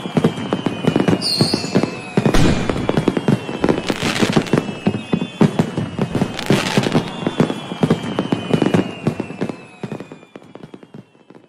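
Fireworks: rapid crackling and popping with several louder bursts and long falling whistles, fading away near the end.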